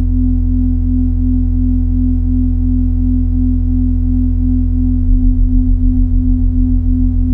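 Minimal electronic drone music built from pure sine tones. A deep steady bass tone sits under a mid-range tone that pulses about three times a second, with faint higher tones held above. About five seconds in, the lowest bass starts to throb about five times a second.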